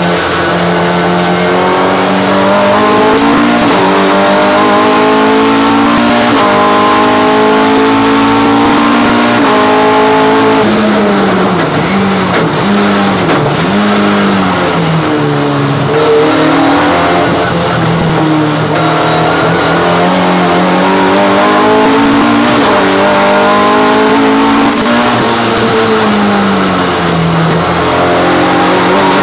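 Race car engine heard from inside the cockpit under racing load, climbing in pitch through the gears and dropping at each shift, with a stretch of quick rises and falls near the middle.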